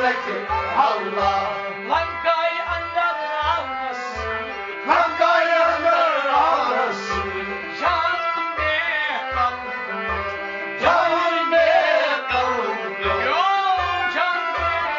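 Kashmiri Sufi song: a man singing in sliding, ornamented phrases over a steady, evenly repeating hand-drum beat and held instrumental tones.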